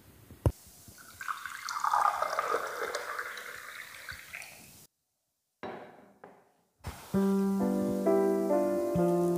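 Water poured from a glass jug into drinking glasses, splashing for about three seconds after a single click near the start. Background music with simple stepped notes comes in about two-thirds of the way through.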